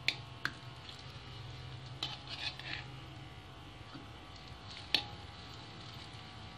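Metal spoon scraping and clicking against a wok while turning a patty of mashed tempe frying in oil: a couple of clicks at the start, a short run of scrapes about two seconds in and a sharp knock about five seconds in. Underneath is a faint steady hiss of the frying oil and a low hum.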